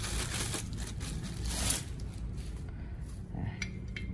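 Clear plastic bag crinkling as it is pulled off a drill press's metal base. It is loudest in the first two seconds, and a few light clicks follow near the end.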